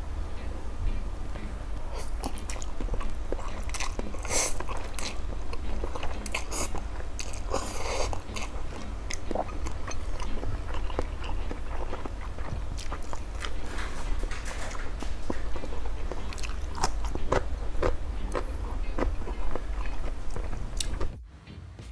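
Close-up eating sounds: a person slurping and chewing spicy instant noodles, with many short wet clicks and crunchy bites, over a steady low hum. The sound cuts off abruptly shortly before the end.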